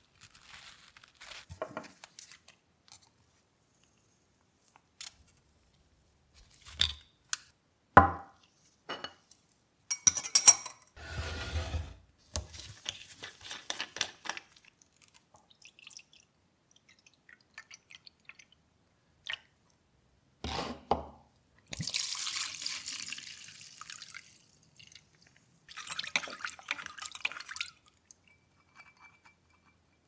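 Liquid poured into a drinking glass among scattered knocks, clicks and rustles of small metal parts and containers being handled on a workbench. Near the end come two noisy stretches of about two seconds each.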